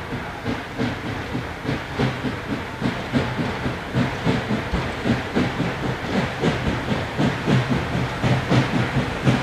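C&O 1309, a 2-6-6-2 articulated Mallet steam locomotive, working steam with a fast, regular beat of exhaust chuffs and a steady hiss of steam. It grows louder as it approaches.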